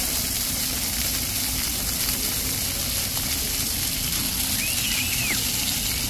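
Plaza floor fountain jets spraying water upward, a loud, steady hiss of rushing water.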